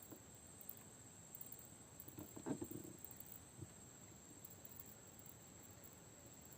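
Near silence: faint background hiss with a few soft, faint knocks around the middle.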